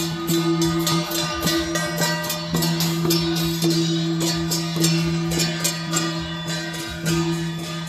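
Music with a steady low held drone and a fast run of sharp plucked or struck notes above it.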